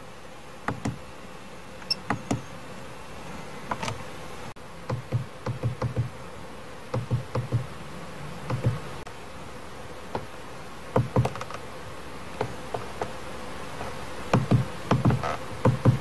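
Steering-wheel control buttons of a Mercedes-Benz W212 E-Class clicking as they are pressed, singly and in quick runs of two to five, to scroll through the instrument-cluster service menu.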